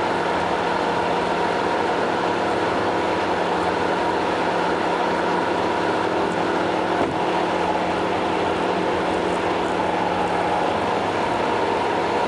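Steady road noise of a car cruising at highway speed, heard from inside the cabin: an even rush of tyres and wind with a constant engine hum.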